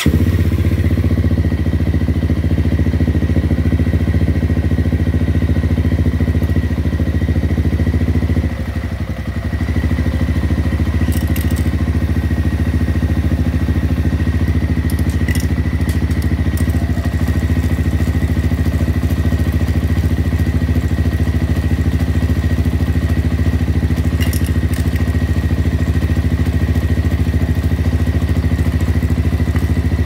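Honda CRF250L's single-cylinder four-stroke engine running steadily in gear with the rear wheel off the ground. It keeps running with the side stand down because the side-stand and clutch safety switches have been bypassed. The level dips briefly about eight and a half seconds in.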